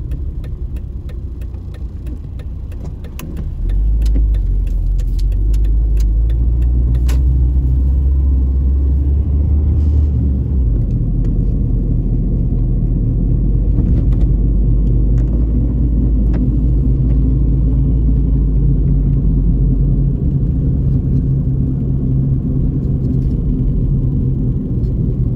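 A Plymouth Neon's four-cylinder engine and road noise heard from inside the cabin while driving: a steady low rumble that grows louder about four seconds in as the car speeds up, then holds even.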